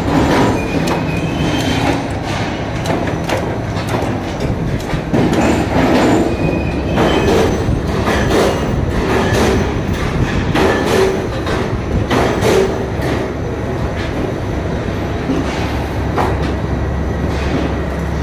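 Roller ring-bending machine running, drawing stainless steel tube through its rollers and coiling it into rings: a steady motor hum with frequent metal clanks and rattles and short squeals of tube rubbing in the rollers.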